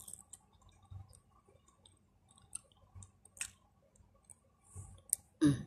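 Close-up mouth sounds of someone chewing food: soft wet clicks and smacks, scattered irregularly a few times a second, with faint low thuds.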